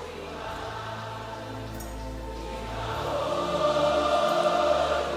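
Live worship music: many voices singing together over sustained instrumental chords and a slow-moving bass line, swelling louder about three seconds in.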